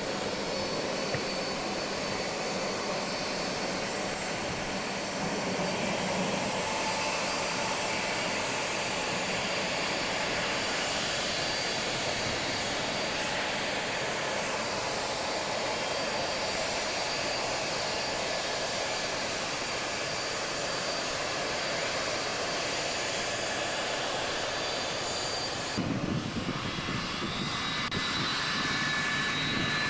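Boeing 767 freighter's jet engines running, a steady roar with a high whine over it. Near the end the sound changes abruptly and a whine rises slowly in pitch.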